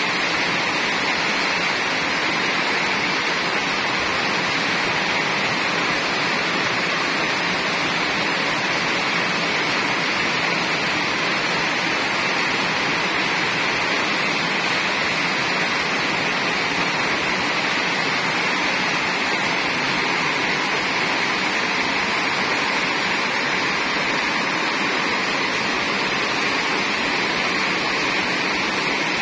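Heavy rain pouring down hard: a steady, even hiss of a downpour with no let-up.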